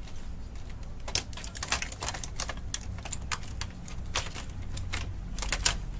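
Irregular clicks and knocks of plastic and metal parts being handled inside an opened-up Brother DCP-T710W inkjet printer, over a steady low hum.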